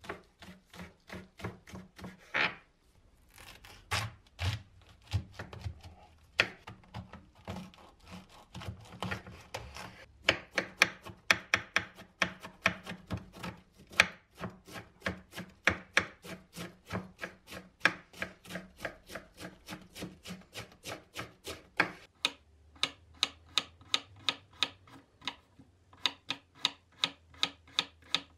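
A 100-year-old hand-made kitchen knife chopping vegetables on a wooden cutting board, slicing spring onion, then red cabbage, then carrot. The blade knocks sharply on the board several times a second, growing faster about ten seconds in.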